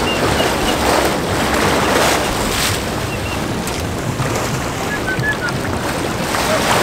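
Water rushing and sloshing around a moving boat's hull, with wind buffeting the microphone in repeated gusts. A few faint short chirps come through, near the start and again around the middle.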